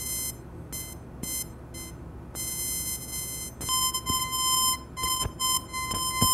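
High-pitched buzzing tone of laser-induced sound: a 15 W blue laser beam turning the surface of a piece of tape into plasma, which rapidly expands the air. The tone comes in short beeps at first, then holds steady and grows stronger about halfway through, with sharp crackling pops toward the end.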